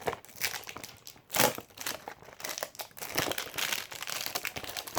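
Blind-box toy packaging crinkling and rustling in the hands as it is opened, in a run of irregular crackles with a louder crackle about a second and a half in.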